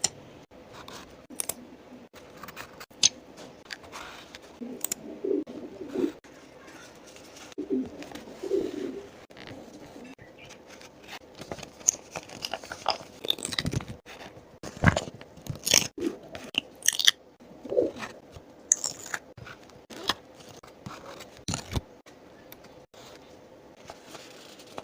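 Close-up paper-crafting sounds: scattered crinkles, taps and sharp clicks of paper and craft materials being handled. Under them a pigeon coos low several times, the grumbling noise.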